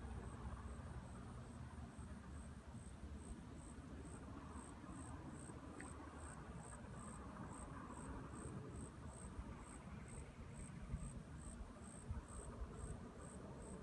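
An insect chirping steadily, a high, even chirp about twice a second, over a faint low rumble.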